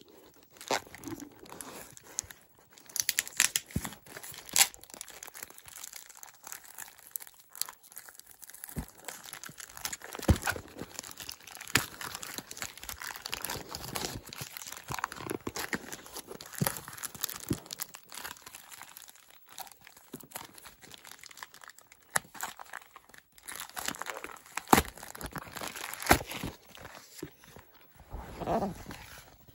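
Plastic mailer bag being torn open and crinkled by hand, with irregular crackles and sharp rips, then cardboard packaging being handled and opened.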